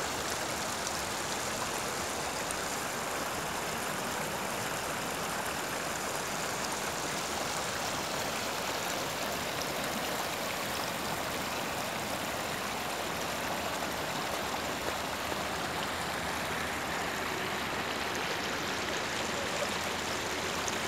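River water rushing steadily over a shallow, stony bed, an even unbroken sound.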